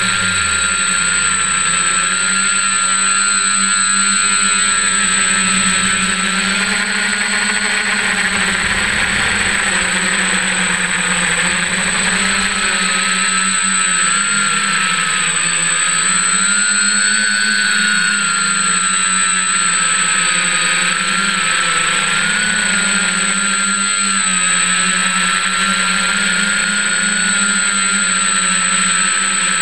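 F550 hexacopter's six electric motors and propellers running in flight, heard from the craft's own onboard camera: a steady loud buzz and whine whose pitch wavers slightly as the throttle changes, with a thin constant high whine on top.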